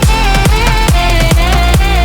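Electronic dance music with a fast, steady beat and a heavy bass line.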